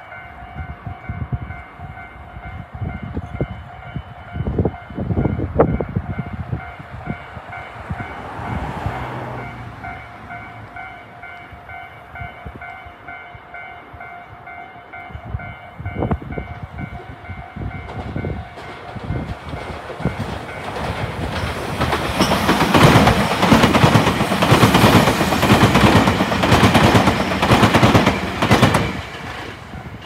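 A Japanese railway crossing's electronic warning bell rings steadily, with wind buffeting the microphone. A little past halfway a Tobu train approaches and passes over the crossing, its wheels clattering over the rail joints and drowning out the bell for several seconds before dropping away just before the end.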